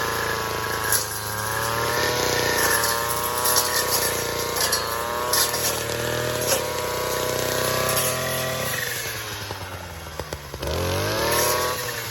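Two-stroke weed trimmer running at high revs while cutting brush, with scattered sharp clicks. About nine seconds in it drops back toward idle, then revs up again near the end.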